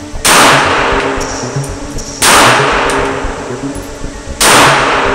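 Three shots from a Glock G42 .380 ACP pocket pistol, about two seconds apart, each echoing and fading in an indoor range, over background music.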